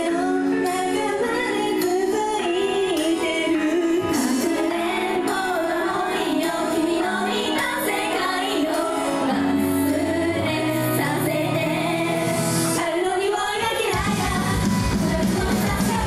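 J-pop idol song: female voices singing over the backing music. About two seconds before the end a steady bass beat comes in.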